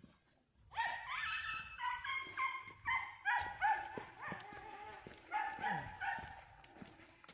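An animal's repeated short, high-pitched calls, several a second in loose runs, starting about a second in.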